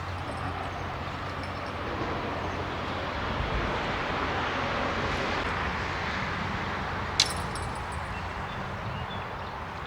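A vehicle passing by: its road noise swells for a few seconds and then fades. A single sharp click about seven seconds in.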